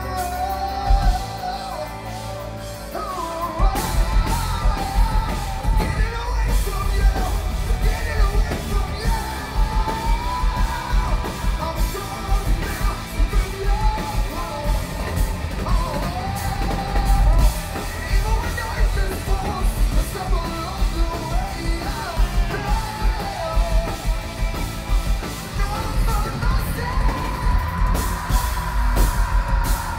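Live rock band playing loudly: a singer singing and yelling over electric guitars, bass and drums, with the drums and bass coming in fully about four seconds in.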